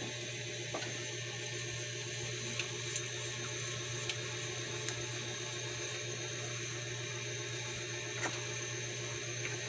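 A wooden spatula stirring a thick cream sauce in a saucepan, with a few faint taps, over a steady hiss and low hum.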